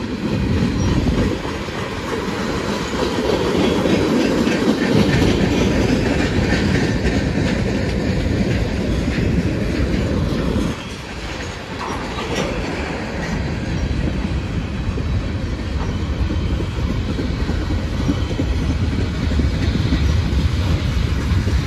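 CSX M422 manifest freight train rolling past, its cars' wheels running on the rails with a steady loud noise and a brief dip about eleven seconds in.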